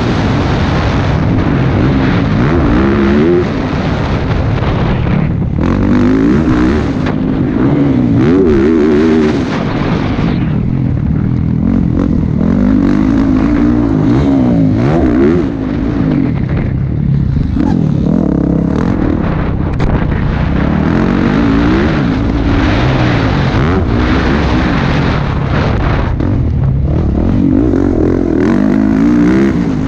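Motocross bike engine revving hard, its pitch climbing again and again as the rider opens the throttle and shifts through the gears, heard close up from the rider's helmet.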